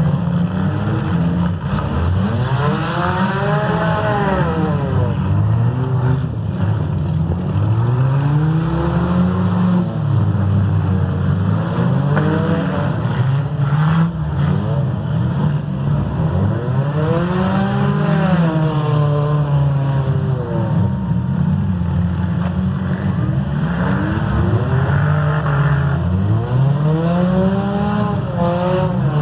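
Demolition derby cars' engines revving up hard and falling back, again and again, with several engines running at once.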